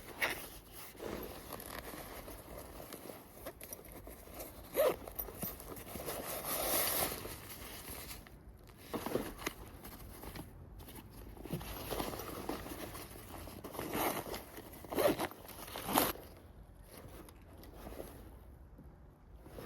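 A 40-litre nylon hiking backpack being handled: a zipper pulled open or shut for over a second partway through, with fabric rustling and several sharp clicks and knocks from its hardware.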